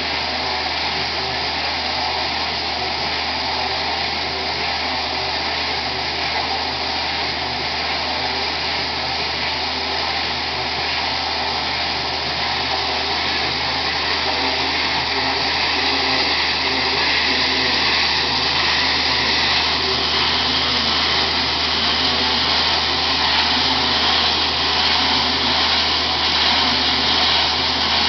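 Easyclean 600T poultry equipment washer running steadily, its Kubota engine humming under the hiss of high-pressure water jets washing a plastic poultry slat. The hiss grows louder and brighter about halfway through.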